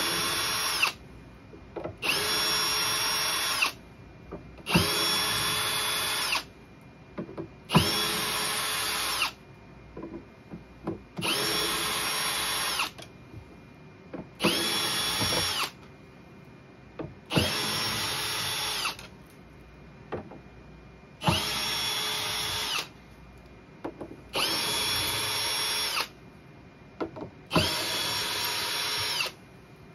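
Cordless drill/driver backing out the screws that hold the drivers in a PA speaker cabinet. It runs in about ten short bursts of a steady, even-pitched motor whine, each a second or two long and about every three seconds, often with a sharp click as a burst starts.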